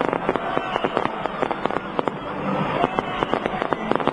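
Fireworks display going off in a dense, continuous string of bangs and crackles, many a second.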